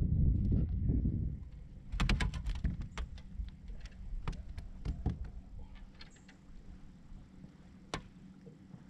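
Handling noise in a fishing boat. A low rumble for about a second, then a quick run of sharp clicks and knocks about two seconds in, scattered taps after, and one sharp click near the end.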